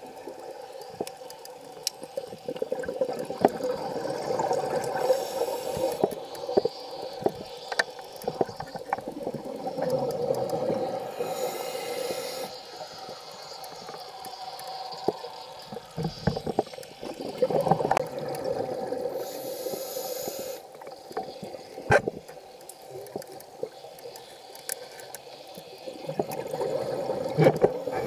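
Scuba diver breathing through a regulator, heard underwater: a hissing inhale about every seven to eight seconds, each followed by a rush of exhaled bubbles, over a steady hum and scattered small clicks.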